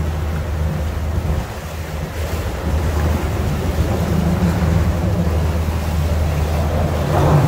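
Motorboat under way: a steady low engine drone under wind buffeting the microphone and water rushing past the hull, with a louder rush near the end.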